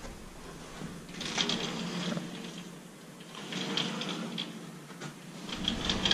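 Rustling and scattered light clicks of a closet door being opened and handled, coming in three short patches.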